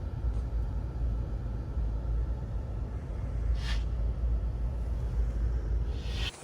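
Steady low rumble with a short hiss about three and a half seconds in, cutting off abruptly near the end.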